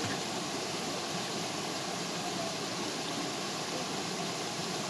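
Steady, even rush of a small waterfall pouring into a stream pool.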